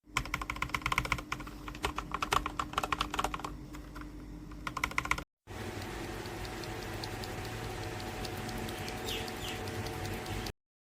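Typing on a mechanical keyboard fitted with factory-lubed Gateron Pro Milky Yellow linear switches: quick, irregular keystroke clacks. After a short break about halfway through comes a steadier hum with only a few faint clicks, and the sound cuts off just before the end.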